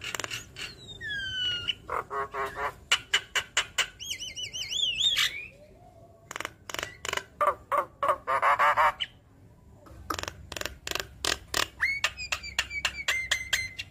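Javan myna singing a busy, varied song: rapid sharp clicks mixed with down-sliding whistles about a second in, wavering whistled notes around four seconds, a harsh chatter after a short pause, and rising whistles near the end.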